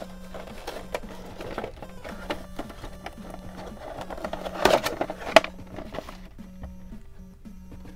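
Hands opening a cardboard and plastic toy box: scattered clicks, rustles and crackles of the packaging, with a louder crinkling burst about halfway through, over background music.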